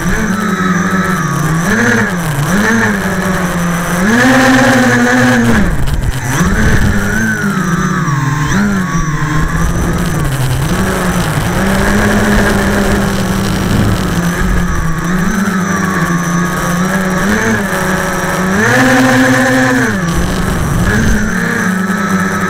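Quadcopter's electric motors and propellers buzzing close to the onboard camera's microphone, the pitch rising and falling constantly as the throttle is worked. It climbs highest about four seconds in and again about nineteen seconds in.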